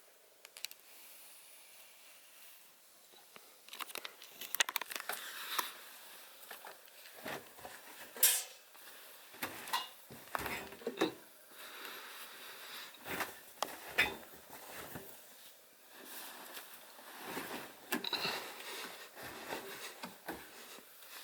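Laundry being loaded into a front-loading washing machine drum: fabric rustling and crumpling in uneven handfuls, with sharp clicks and knocks.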